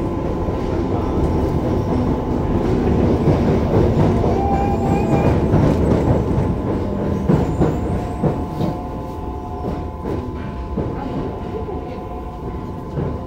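Onboard running sound of a Yokohama Municipal Subway 3000A-series car with a Mitsubishi GTO-VVVF inverter: wheels on rail under a dense rumble with steady whining tones. It grows somewhat quieter about eight seconds in, with a run of clicks from the wheels over the rails.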